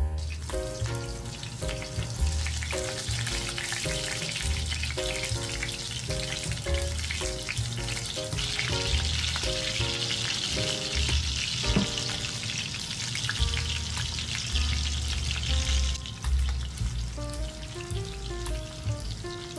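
Beef meatballs frying in hot oil in a pan: a steady sizzle, loudest in the middle and easing a few seconds before the end. Background music, a keyboard melody over a bass line, plays throughout.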